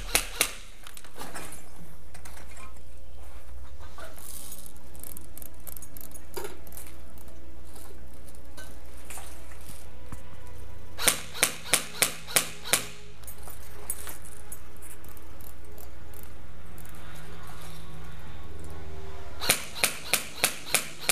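Airsoft rifle firing quick strings of single shots, about three a second: a couple at the start, about six around the middle, and about six more near the end. Steady background music plays throughout.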